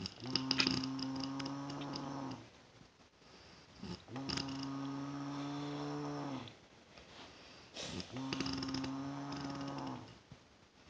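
Snoring: three long, steady, low-pitched snores of about two seconds each, one roughly every four seconds, with quiet in-breaths between.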